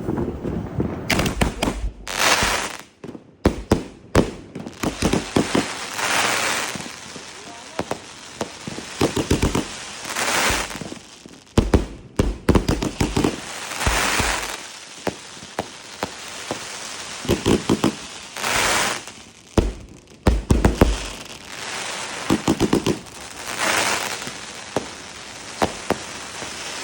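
Multi-shot fan-shaped firework cake firing: repeated sharp bangs and clusters of crackling, with hissing stretches of about a second between them every few seconds.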